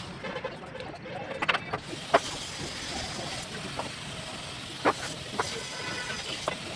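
Bricklaying work: a steel trowel tapping and knocking bricks as they are set, about half a dozen sharp, irregular clinks, the loudest about two seconds in. Steady background noise of traffic runs underneath.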